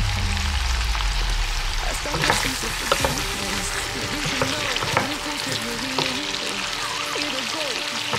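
Shrimp and asparagus sizzling in butter in a small pan, stirred with a wooden spoon that knocks against the pan several times around the middle.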